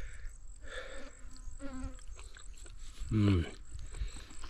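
Flies buzzing close by in short passes, with a brief low grunt from the man about three seconds in.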